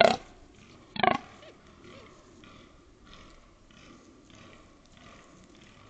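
Fallow buck grunting in the rut: two short, loud grunts, one right at the start and another about a second in.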